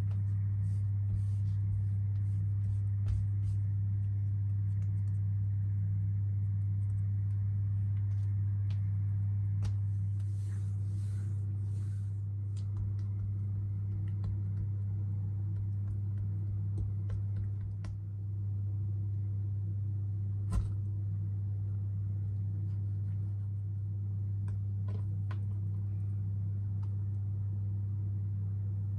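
A steady low hum, with faint scattered taps and light rubbing from hands rolling and pressing soft dough balls on a countertop, and one sharper tick a little past two-thirds of the way through.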